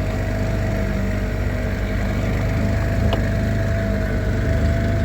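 Yamaha 5-horsepower outboard motor running steadily under way: a constant low drone with a steady whine above it.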